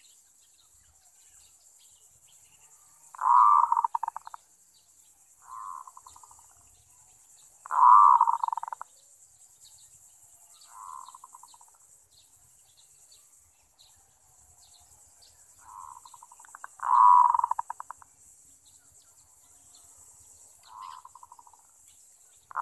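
Zebra dove cooing: pulsed, trilling coos about a second long, repeated every few seconds, with loud calls alternating with fainter ones. A steady high insect hiss runs underneath.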